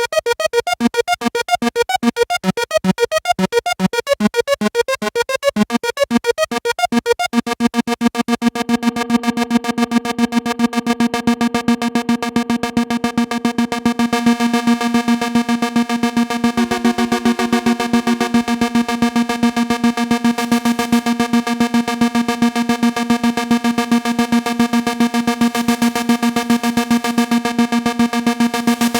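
Korg ARP 2600 FS analog synthesizer playing a patch: a fast pulsing run of changing notes, then, about seven seconds in, one held note that keeps pulsing rapidly. A brief higher, wavering note is added around the middle.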